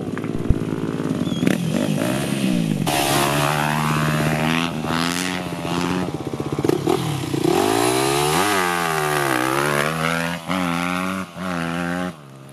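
Motocross bike engine under load, revving up and dropping back again and again as the rider shifts and works the throttle, with one deep dip and pickup about two-thirds of the way through.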